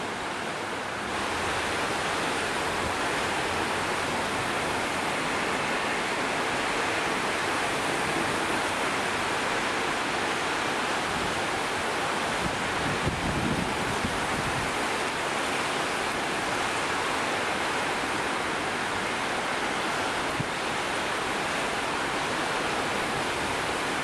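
Torrential typhoon rain pouring down: a dense, steady hiss of heavy rain on roofs and streets, growing louder about a second in.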